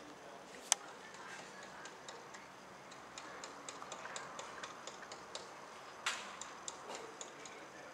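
Faint, irregular clicking and ticking over a low hiss, with a sharper click about a second in and another about six seconds in.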